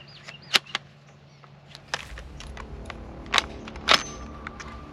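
A series of sharp clicks and knocks, about six in all, the loudest about half a second in and near four seconds. A thin ringing tone lingers after the last one.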